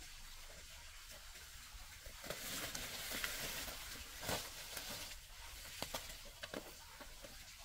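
A soft hiss that swells about two seconds in and eases off after about five seconds, with scattered light clicks and knocks.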